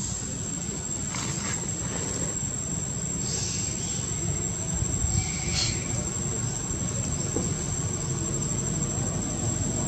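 Insects keep up one thin, high, unbroken drone over a low, steady rumble. A few short, faint chirps stand out about a second in, and again around three and a half and five and a half seconds in.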